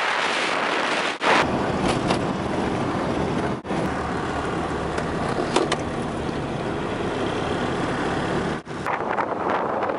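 Steady road and wind noise of a vehicle driving on tarmac, heard from inside the cabin. The noise is broken by brief sudden gaps about one, three and a half, and eight and a half seconds in.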